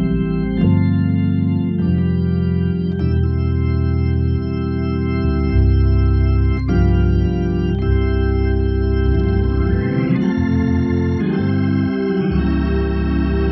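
Hammond organ playing slow, sustained gospel chords over a deep bass, the chord changing every second or two.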